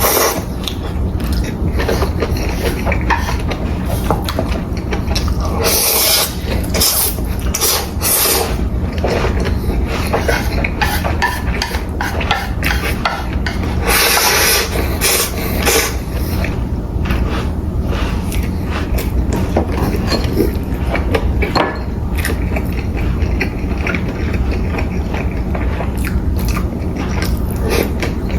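Close-miked eating of Jjapaghetti noodles and pan-fried dumplings: continuous wet chewing and biting, with a few sharper crunchy bites standing out, over a steady low hum.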